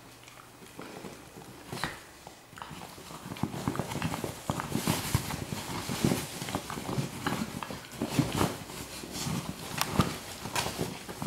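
A small terrier chewing and mouthing a fabric pillow: busy, irregular clicking and rustling of the cloth, sparse at first and dense from about three seconds in.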